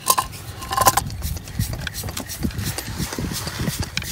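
Insulated screwdriver and fingers clicking, tapping and scraping against a plastic junction box and its terminals: a run of small irregular knocks, with a couple of brief squeaks early on.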